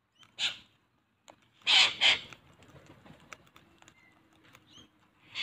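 Harsh cockatoo screeches from a feeding flock of sulphur-crested cockatoos and little corellas: one short screech, then two loud ones close together a little under two seconds in. Under them, scattered small clicks of beaks cracking seed and tapping a plastic seed tub.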